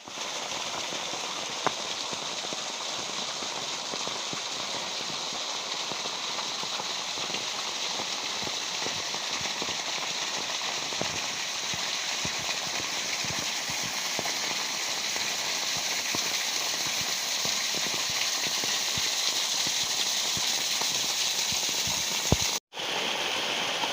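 Steady rushing and splashing of rain-fed water pouring over a small waterfall, growing slightly louder, with a brief break near the end.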